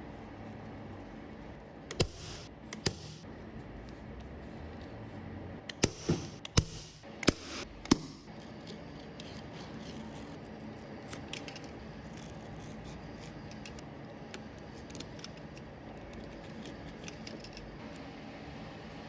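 Metal parts and tools being handled: sharp clicks and knocks, clustered about six to eight seconds in, with short bursts of hiss near two and six seconds, then only faint light ticking over a steady background.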